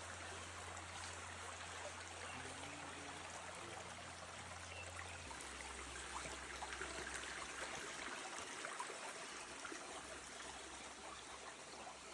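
A stream running and trickling steadily over rocks.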